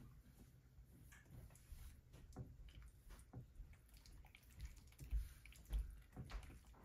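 Silicone spatula stirring sticky glue slime in a glass bowl: faint, irregular wet squishes and light scrapes, with a couple of low thumps about five and six seconds in.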